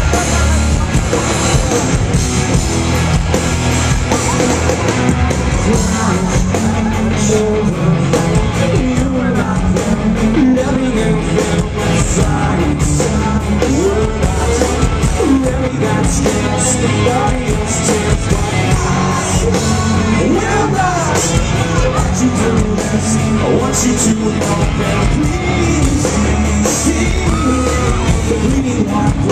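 Live rock band playing loud, with a male singer over electric guitars and drums, heard from within the crowd.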